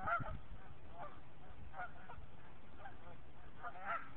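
Geese on the water honking: short calls about once a second, loudest at the start and again near the end.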